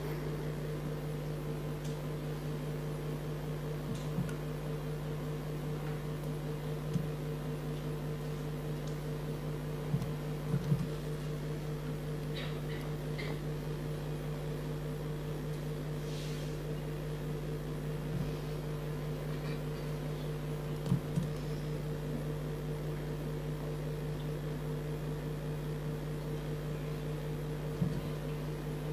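Steady electrical hum, a low drone with a second, higher drone above it, broken now and then by a few faint clicks and knocks.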